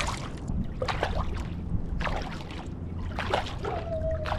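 Kayak paddle blades dipping and pulling through the water in quick alternating strokes, each stroke a short splash and trickle, over a steady low rumble of wind and water.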